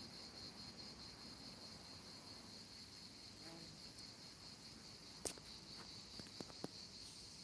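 Steady high-pitched insect chorus, pulsing evenly without a break. A sharp click comes a little over five seconds in, and two smaller clicks follow about a second later.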